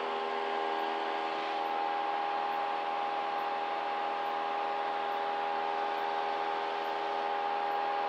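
Steady drone of a Cessna's piston engine and propeller in flight, heard inside the cockpit, holding one pitch throughout.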